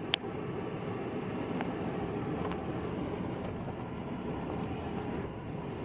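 Steady vehicle noise of engine and tyres on the road, heard while driving, with a short click at the start.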